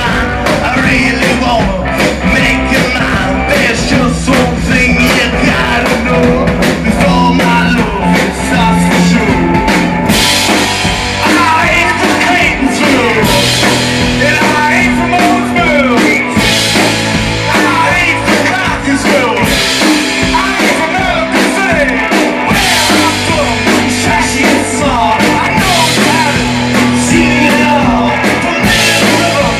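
Live rock band playing loud through amplifiers: electric guitar, electric bass and a drum kit.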